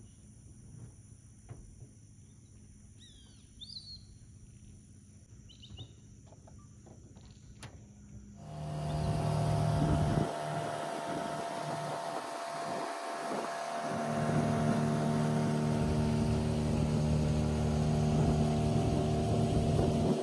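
Quiet lakeside forest background with a few bird chirps and a steady high insect drone. About eight seconds in, a boat motor cuts in abruptly, running steadily at speed with water rushing past the hull.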